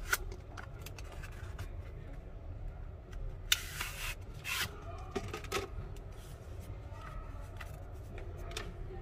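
Cardboard packaging being handled: a white box's sleeve slid off its inner tray, with rubbing, scraping sounds and small taps. The loudest scrape comes a little past three seconds in, with another about a second later.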